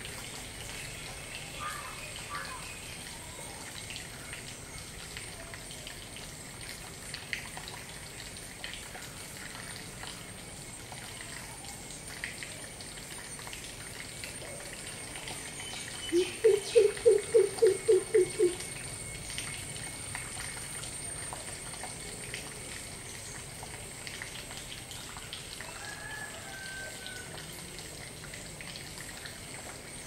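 Greater coucal giving its booming coop-coop-coop call once, about halfway through: a run of about ten quick, low hoots over two seconds, the first one rising in pitch. A steady hiss lies underneath.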